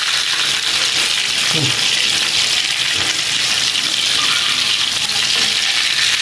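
Whole river fish frying in hot oil in a wok, giving a steady loud sizzle as they are turned with metal tongs. Sizzling this loud is the sign that the oil is hot enough to fry fish without sticking.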